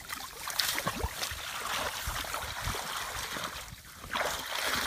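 Shallow muddy paddy water splashing and sloshing as a woven bamboo fish trap is pushed and plunged through it, with a few dull thumps. The splashing drops off briefly just before the end, then picks up again.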